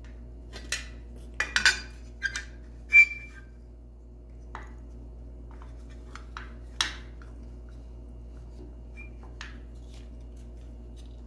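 Scattered light metal clicks and clinks as the parts of a sewing machine foot pedal's sheet-metal housing are handled and fitted together, with one sharper, briefly ringing clink about three seconds in. A steady low hum runs underneath.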